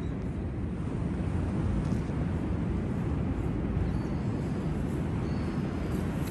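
Steady low rumble of seaside ambience: surf and wind noise with no distinct events, and two faint short high chirps about four and five seconds in.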